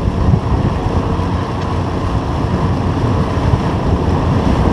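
Motorboat under way through chop: heavy wind buffeting on the microphone and water rushing and slapping against the tri-hull, with the Evinrude 70 outboard running underneath.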